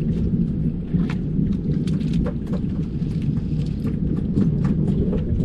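Steady low rumble of strong wind buffeting the microphone on a small boat at sea, with many short ticks and splashes of water against the boat.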